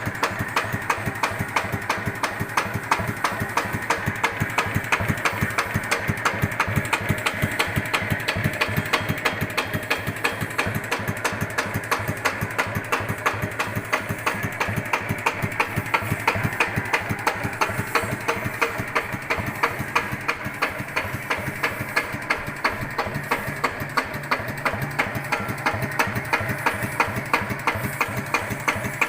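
Yanmar TF105 L single-cylinder diesel engine idling very slowly without stalling, with a steady, even 'tok-tok-tok' knock on every beat, which the owner finds strange and is unsure is normal.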